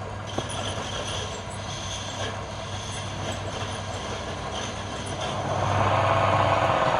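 Woodworking machine running with a steady motor hum and a noisy grinding rush that grows louder about five and a half seconds in.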